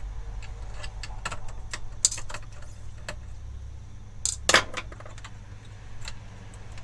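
Small metal clicks and clinks of a screwdriver and screws being worked out of a PC's steel chassis, with a louder double clatter of metal a little past halfway. A steady low hum runs underneath.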